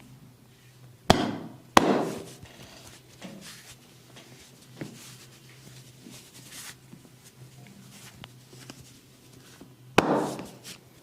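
Three loud, sharp smacks of a barber's percussive hand massage, two close together about a second in and one near the end, each ringing briefly in the room. Faint taps and rubbing of hands on skin fill the gaps.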